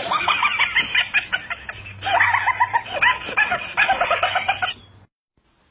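Rapid, high chicken-like clucking and cackling, several calls a second, breaking off about five seconds in.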